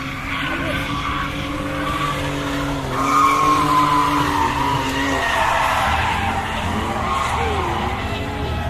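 Drift cars on a race circuit, engines running hard and tyres squealing as they slide through a corner. The squeal is loudest about three seconds in, and the revs rise and fall near the end.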